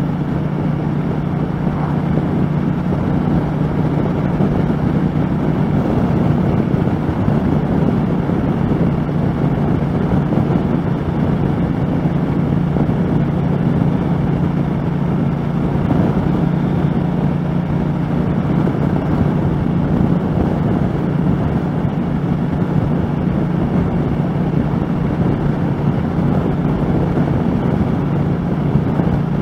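A 2013 Triumph America's 865cc parallel-twin engine running steadily at highway cruising speed, its even drone mixed with wind rush on a helmet-mounted microphone.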